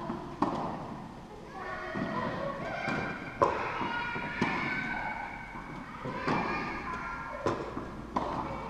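Tennis balls being struck by racquets and bouncing on an indoor court: sharp knocks every one to two seconds, each with a hall echo, the loudest about three and a half seconds in.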